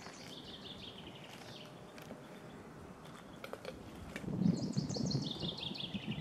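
A small songbird singing outdoors: a short fast trill early on, then a longer trill about four seconds in that falls steadily in pitch. A low rumble, the loudest sound, rises with the second song.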